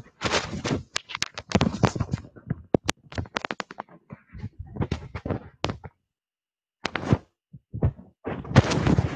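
Rapid, irregular sharp clicks and crackling noisy bursts from an online-class audio stream, cutting out to silence briefly about six seconds in.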